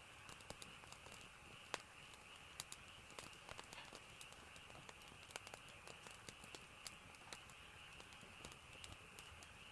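Faint, irregular small clicks and taps over a steady soft hiss.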